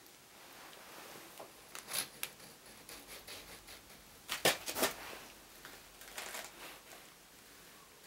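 Small clicks and rattles of e-bike throttle and display parts and a small hand tool being handled and fitted on a handlebar, loudest in a quick burst of clicks about four and a half seconds in.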